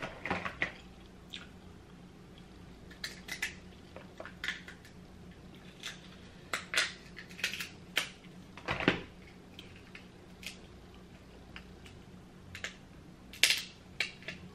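King crab leg shell being cracked and cut with a small metal hand tool: a scatter of separate sharp cracks and clicks, the loudest about nine seconds in and again near the end, with light clinks against the plate.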